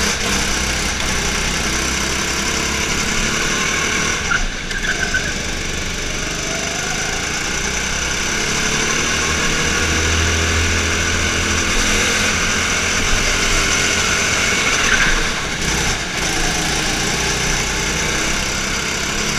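Go-kart engine running hard as the kart laps, heard from on board. The engine drops off briefly about four seconds in and again about fifteen seconds in as the driver lifts for corners, then picks up again each time.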